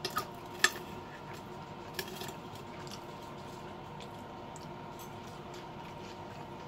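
Fork and knife clicking against a ceramic plate a few times, the sharpest tap just under a second in, over a faint steady hum.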